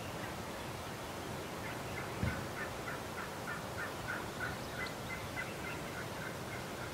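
Gould's wild turkeys calling: a long run of short, evenly spaced notes, about three a second, with a single low thump about two seconds in.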